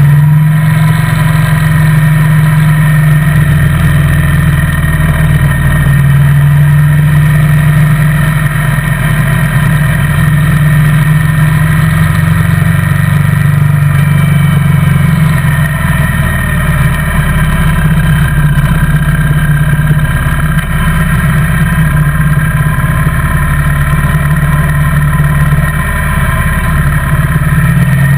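Motorcycle engine running steadily at cruising speed, heard on board the bike as a loud, even low drone.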